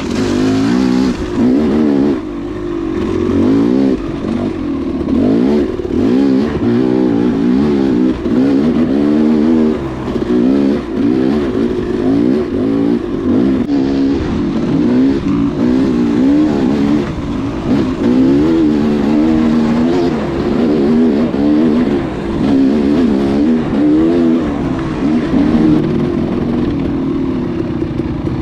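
Dual-sport motorcycle engine revving up and down over and over as the throttle is worked along a dirt trail, with short dips where it is rolled off.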